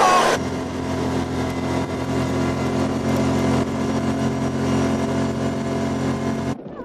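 A loud burst of shouting over a side-by-side UTV driving past, then an engine idling steadily at an unchanging pitch for about six seconds, cutting off suddenly near the end.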